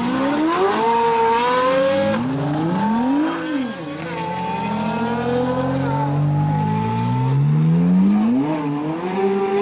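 Ferrari V8 sports car accelerating hard through the gears: the engine pitch climbs, drops back at each upshift and climbs again, several times over.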